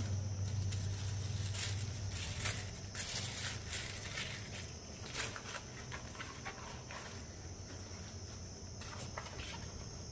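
Tissue paper and a thin card sleeve rustling and crinkling in short, irregular bursts as a gold leaf pack is folded and slid back into its packet, busier in the first few seconds.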